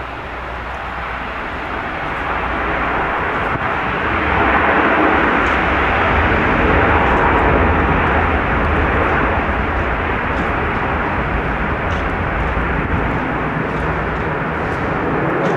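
Lockheed L-1011 TriStar's Rolls-Royce RB211 turbofans in reverse thrust during the landing roll on a wet runway. It is a loud, steady rushing noise that builds over the first few seconds, peaks, then eases slightly and holds.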